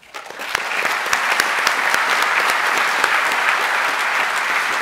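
Large audience applauding in a big hall: a dense wash of many hands clapping that swells in quickly and then holds steady.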